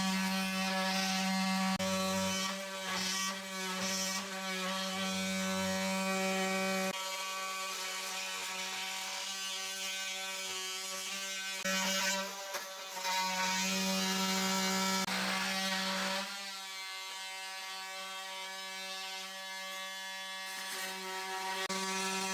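A handheld electric power tool buzzing at a steady pitch while it cuts a wooden form out from under a kitchen cabinet. It runs in long stretches, stops briefly about twelve seconds in, and runs more quietly over the last few seconds.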